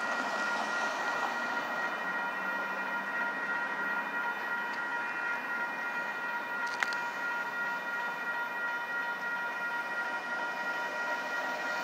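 Grade-crossing warning bell ringing steadily, its tone held without a break. A single sharp click about seven seconds in.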